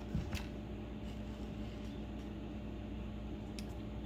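Steady electrical hum and hiss, with a few faint small clicks as the slot car's wires and plastic parts are handled.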